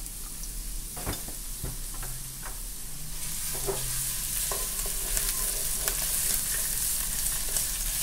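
Julienned ginger and minced garlic sizzling in hot oil in a nonstick wok, stirred with a wooden spatula. There are a few light knocks in the first seconds, and the sizzle grows louder about three seconds in.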